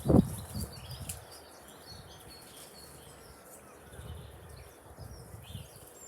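Small garden birds chirping, with many short calls scattered throughout, over a low rumble of wind on the microphone. A brief low thump comes right at the start.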